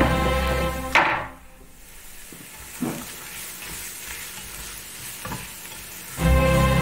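Diced onion and apple sizzling in hot oil in a pot while being stirred with a silicone spatula, with a couple of short knocks of the spatula against the pot. Background music stops with a click about a second in and comes back near the end.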